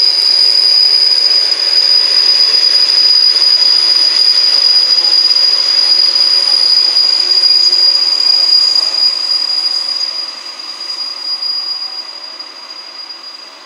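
Steel wheels of a rake of JNR 12-series passenger coaches squealing on the rails as the coaches roll past, with rail noise beneath. The squeal is one high, steady tone that fades away over the last few seconds as the train moves off.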